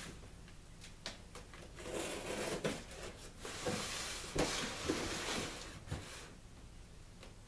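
Cardboard shipping box being cut open with a knife: scraping and tearing of tape and cardboard in several short stretches, with a few sharp knocks.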